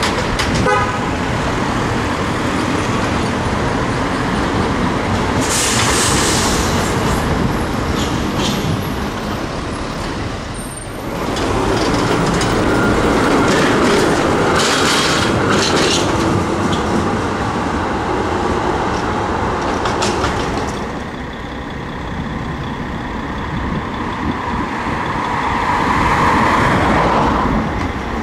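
Trams running on street tracks among city traffic: an ex-Basel Duewag tram passes close by, its wheels clacking on the rails, loudest about halfway through. Near the end a Tatra KT4 tram approaches.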